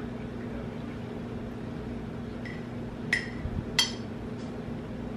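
A metal spoon clinks against a plate three times, the two clearest about three and four seconds in, each with a short ring, over a steady low hum.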